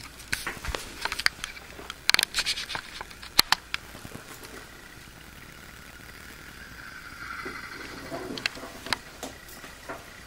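Handling noise from a hand-held video camera being carried and moved about: scattered clicks, taps and rustles, thickest in the first few seconds and again near the end, over a faint steady hiss.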